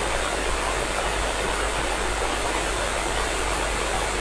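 Steady hiss of an FM radio receiver with no signal coming in, its squelch open, from an SDR tuned to the ISS 2-metre downlink once the station's carrier has dropped; a low hum runs underneath.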